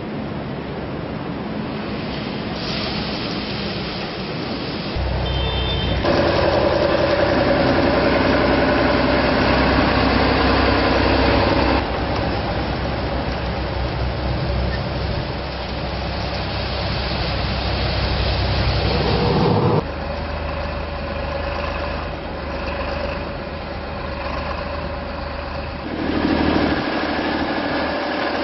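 Heavy road-repair machinery running, its engines idling and working. The sound changes abruptly several times.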